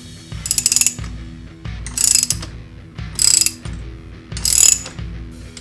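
Socket ratchet wrench clicking in four bursts, about a second and a quarter apart, as it tightens the nut of a crankshaft installer tool, drawing the crank into the crankcase.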